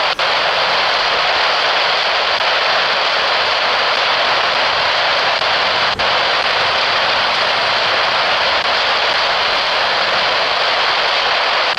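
Steady hiss of air-band radio static between air traffic control transmissions, with two brief dropouts: one just after the start and one about six seconds in.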